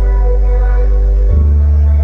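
Very loud music from a 'sound horeg' carnival sound system, dominated by heavy sustained deep bass notes; the bass shifts to a new note about a second and a half in.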